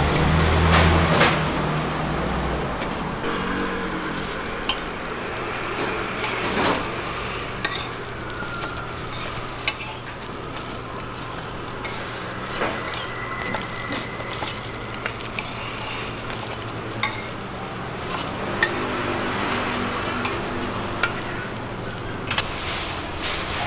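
Garlic chive pockets sizzling as they pan-fry in a wide flat pan, with scattered sharp clinks of metal tongs against the pan as they are turned and stood up in a row.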